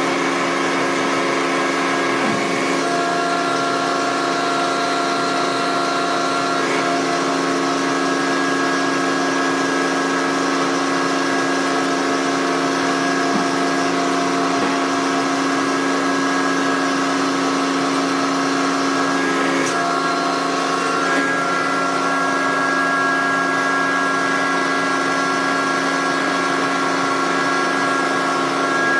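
Roadheader running unloaded in a test: a steady mechanical hum with several held tones over a light noise, from its motors and hydraulics as the boom swings the cutting head. The tones shift slightly about two and a half seconds in and again around twenty seconds in.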